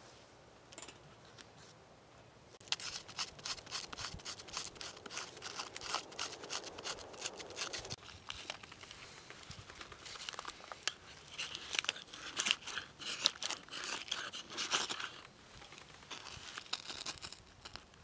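After a faint start, a knife shaving thin curls off a stick of wood in quick, rapid scraping strokes, making fine shavings as tinder to light a fire.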